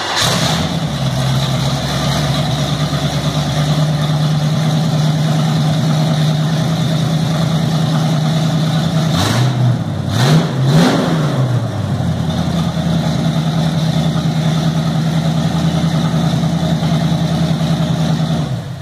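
Chevrolet 327 small-block V8 in a 1929 Ford Model A roadster truck firing up, running on a freshly fitted 50,000-volt ignition coil. It settles into a steady idle, is blipped by hand three times about halfway through, then idles again and is shut off near the end.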